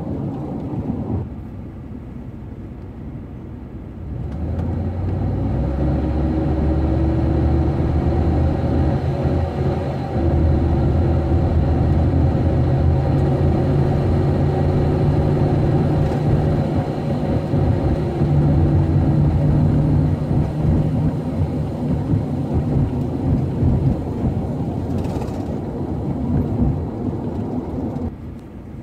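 Van engine and road noise heard from inside the cab while driving: the engine grows louder about four seconds in as the van picks up speed, runs steadily, then eases off near the end as the van slows. This is an engine that the owner says makes a noise and loses power when accelerating up to about 30 mph.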